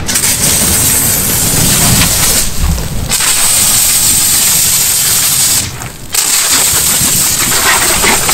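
Fire extinguisher discharging onto a petrol-fuelled fire: a loud, steady hissing spray that stops briefly twice and starts again.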